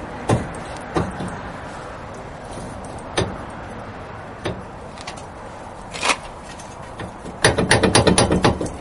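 Hammer tapping on a wheel hub assembly to knock it loose after its bolts are out: a few single taps spread apart, then a quick run of about a dozen taps near the end.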